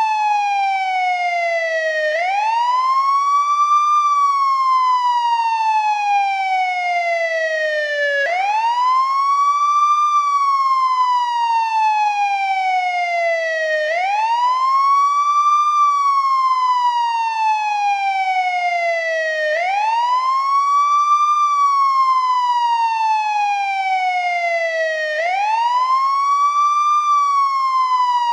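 Old-model American ambulance wail siren, sweeping up and down continuously. Each cycle is a quick rise in pitch over about two seconds, then a slower, steady fall over about four, repeating roughly every six seconds. The rise comes five times.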